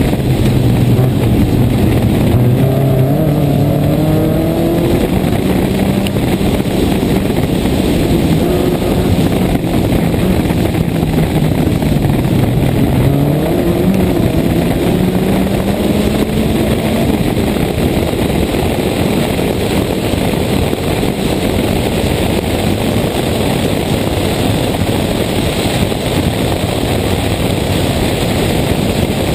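Toyota Corolla 1.6 rally car driven hard on a stage, heard from outside the cabin. Its engine pitch rises and falls with throttle and gear changes over the first half, then is buried under loud wind and road noise.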